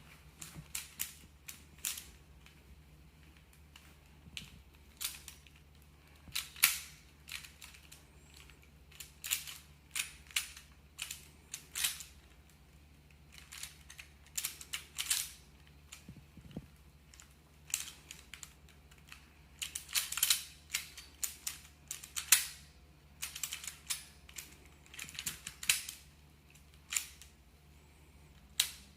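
Plastic Pyraminx puzzle being twisted by hand as it is solved: irregular clusters of sharp plastic clicks and clacks, some in quick runs.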